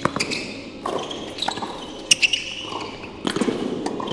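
Tennis rally: several sharp hits of racket on ball and ball bounces on the court, coming irregularly about a second apart.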